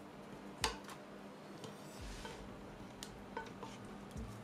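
Faint clinks of kitchen utensils against a saucepan and bowl, with one sharper clink just under a second in, a few lighter ticks later, and a brief soft rustle about two seconds in.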